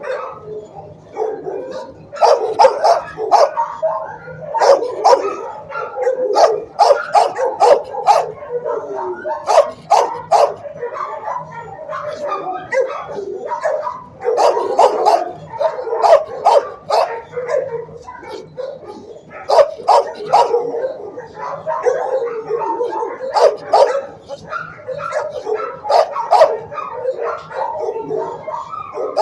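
Shelter dogs in a kennel barking and yipping in a near-continuous run of sharp, overlapping barks, with a couple of short lulls.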